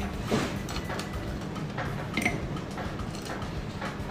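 Ice cubes placed one by one with metal tongs into a drinking glass, a string of light, irregular clinks of ice against glass and tongs.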